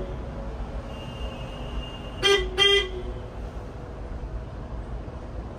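A vehicle horn sounding two short toots in quick succession, over a steady low rumble of engine and road noise.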